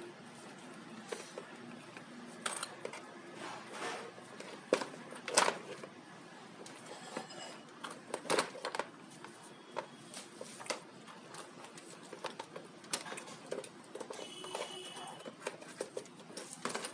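Irregular clicks, taps and knocks of small hard parts and plastic being handled: the accessories of a rotary tool kit being sorted through and picked up.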